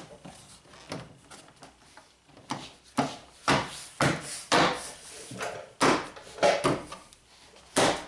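Plastic interior door panel of a Honda Civic rear door being pressed and pushed into place by hand, its retaining clips snapping in. The knocks are irregular, a dozen or so, coming thickest from a couple of seconds in, with handling rustle between them.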